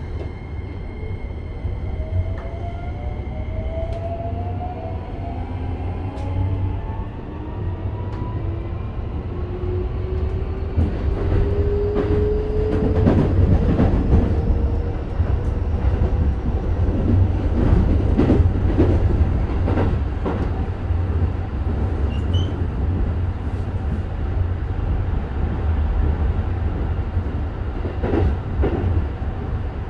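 Keikyu 1000 series electric train pulling away, heard inside the car: the Toyo hybrid SiC VVVF inverter gives a whine of several tones climbing steadily in pitch through the first half as the train accelerates. A steady low running rumble lies under it, and from about a third of the way in the wheels clack over rail joints.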